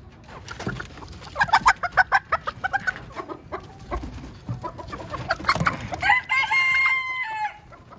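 Chickens squawking as hens are handled and taken out of their cage: a quick run of loud, harsh calls, then one long steady call about six seconds in.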